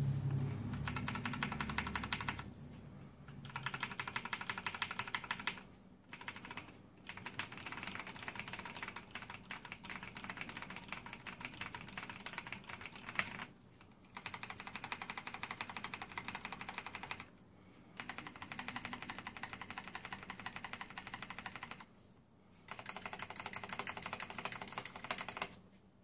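Fast typing on a Razer BlackWidow mechanical keyboard with Kailh-made Razer Orange switches, a dense patter of keystrokes. It comes in about six runs broken by brief pauses and stops shortly before the end. There is a low thump at the very start.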